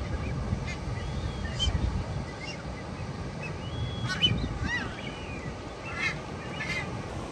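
Several short seabird calls, some bending up and down in pitch, over a steady low rumble of surf on a rocky shore.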